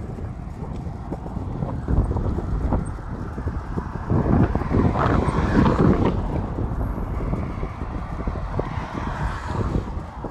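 Wind buffeting the microphone of a camera carried on a moving bicycle, a heavy uneven rumble with a louder surge about four to six seconds in.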